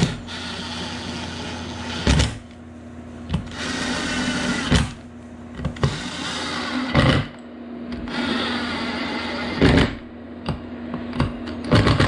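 Cordless drill-driver spinning screws into an oil pump housing: four runs of steady motor whir, each two to three seconds long and each ending in a sharp knock, then a few shorter clicks and knocks near the end.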